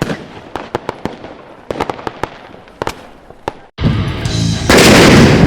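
Scattered sharp firecracker cracks, about a dozen over three seconds. Loud rock music cuts in near the end.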